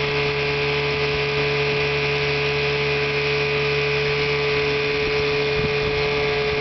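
1971 Chrysler 9.9 hp two-stroke outboard motor running smoothly at a steady speed, a constant drone that holds one pitch throughout.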